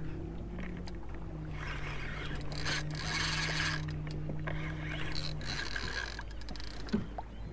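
Spinning fishing reel cranked to take up line on a hooked fish, under wind on the microphone that comes and goes. A steady low hum runs underneath and stops about two thirds of the way through.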